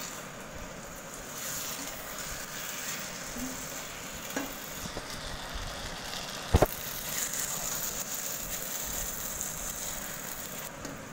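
Sweet rice cooking in oil and sugar syrup sizzling steadily in a pan while a silicone spatula stirs it, with a few light clicks and one sharp knock about two-thirds of the way through.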